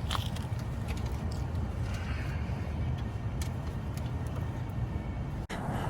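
Steady low rumble of outdoor background noise with a few faint clicks, cut off abruptly near the end.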